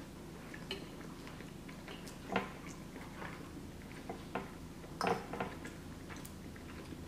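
Metal fork clinking and scraping against a glass baking dish while scooping creamy pasta: a few short sharp clinks, the loudest about two and five seconds in, with quiet chewing between them.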